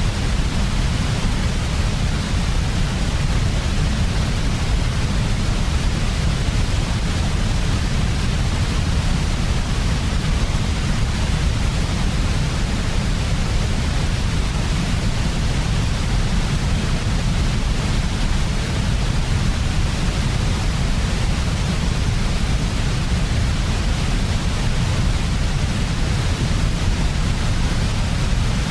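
Continuous sleep-aid white noise: an unchanging hiss with a strong low rumble beneath it.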